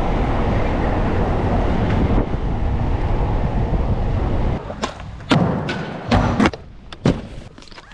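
A car driving over a cobblestone street: a steady low rumble of tyres and road noise. About four and a half seconds in it gives way to a string of sharp clacks and thuds from a skateboard, the pops and landings of tricks on a hard skatepark floor.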